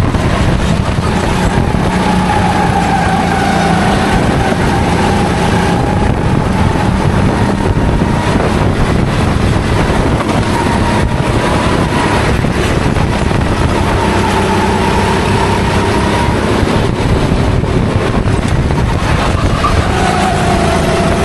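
Racing kart engine running hard, its pitch rising and falling as it accelerates out of corners and eases off into them.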